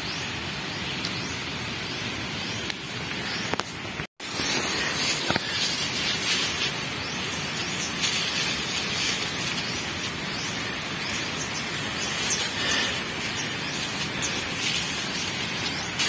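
Dry rice straw rustling and crackling as it is handled while a bamboo-and-rubber bird trap is set, over a steady outdoor hiss; the sound breaks off briefly about four seconds in and then comes back somewhat louder.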